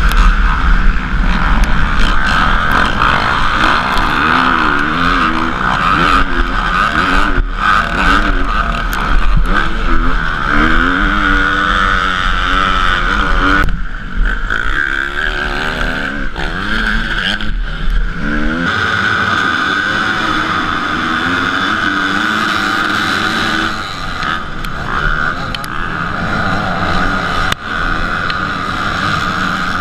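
Motocross dirt bike engines revving hard, pitch rising and falling as the rider shifts and throttles, heard from a helmet camera with other bikes running close by. The sound changes abruptly twice, about halfway through and again a few seconds later.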